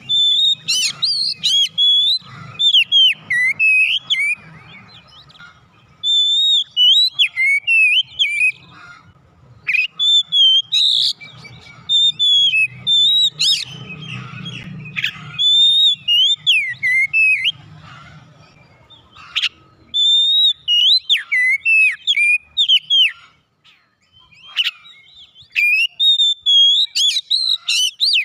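Oriental magpie-robin singing: loud, varied whistled phrases that slide up and down, with thin high chirps over them, in runs broken by short pauses of about a second.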